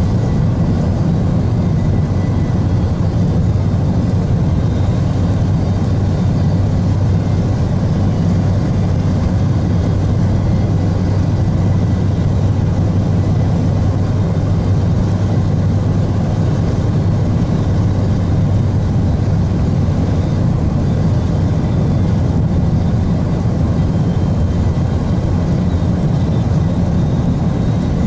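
Car driving at a steady speed, heard inside the cabin: a steady low drone of engine and tyres on the road.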